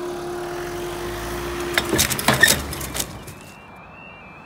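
A steady hum that stops about two seconds in with a cluster of sharp knocks and clatter. About a second later, a UK level crossing's warning alarm starts its two-tone yodel, stepping back and forth between two pitches, as the crossing's amber lights come on.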